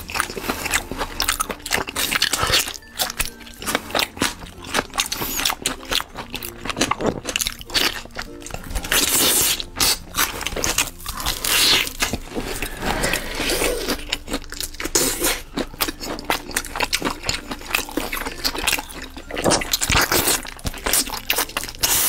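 Close-miked eating: repeated crunchy bites and chewing of food, with many short, sharp mouth clicks throughout.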